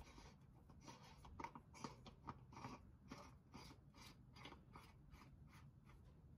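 Faint, quick clicking and crackling, about three clicks a second, as a metal oil filter housing is twisted by hand onto its threads; the clicks fade out near the end.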